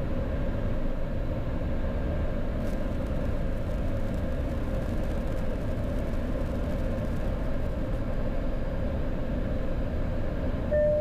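Steady low rumble inside the cockpit of a Boeing 737-800 taxiing on its right-hand CFM56 engine alone, with a steady hum running under it. A short beep sounds near the end.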